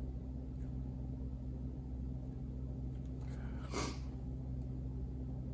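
Steady low hum, with one brief light scrape or tap about three and a half seconds in, as a paintbrush is worked over a plastic paint palette.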